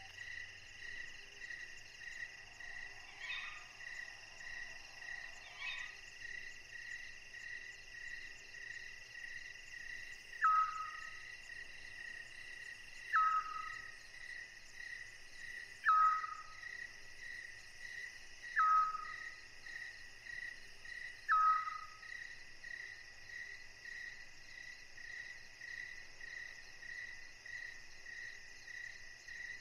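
Night-time field ambience: crickets and other insects calling steadily, with a high peep pulsing evenly more than once a second. From about ten seconds in, a short falling whistle call comes five times, roughly three seconds apart.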